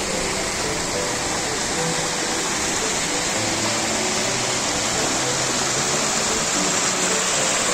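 Shallow mountain stream rushing and splashing over rocks in a small cascade: a steady, even rush of water.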